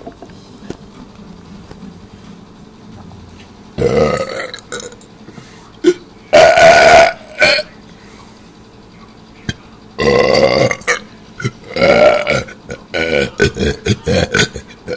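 A man burping deliberately and loudly. After a few seconds of quiet come three long burps, the middle one the loudest, then a quick run of short, choppy burps near the end.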